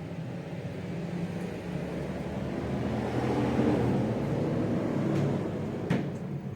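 Engine noise of a passing vehicle, swelling over a few seconds and fading again, with a sharp click near the end.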